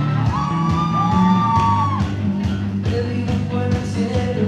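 Rock band playing: electric guitar, bass and a steady drum beat, with a long held high note over them in the first two seconds.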